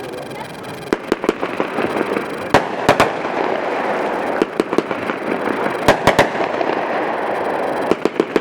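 A 500-gram, 48-shot firework cake (Primo) firing: sharp bangs in quick clusters of two or three, coming every second or two, over a steady noisy background.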